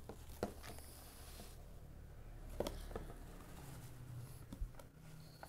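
Faint handling noises: a few light clicks and knocks as opened plastic gashapon capsules are moved about by hand on a tabletop.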